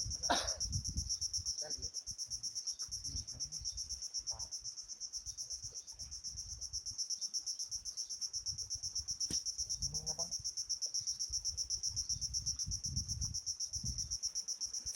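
Insects chirping in a steady high-pitched pulsing trill, about six pulses a second, over a low rumble, with a short knock just after the start.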